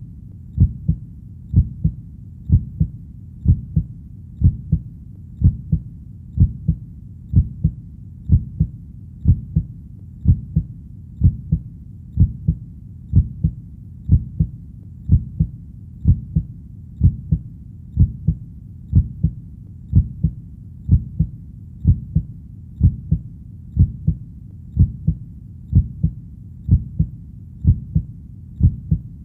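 Heartbeat playing as a slow, even rhythm of low thumps, about one beat a second.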